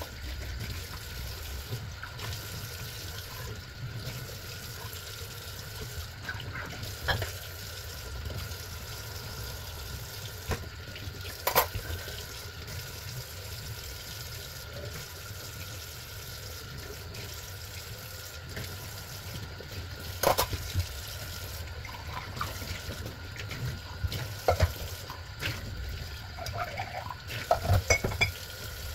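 Kitchen tap running into a stainless steel sink as dishes are washed by hand with a sponge. A few sharp clinks of dishes knocking against the sink and each other, with a cluster near the end.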